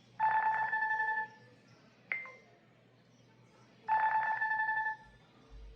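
Nothing phone ringtone for an incoming call, set as a contact's custom ringtone. A buzzy tone lasting about a second is followed by a short, sharp ding that rings away, and the pattern plays twice.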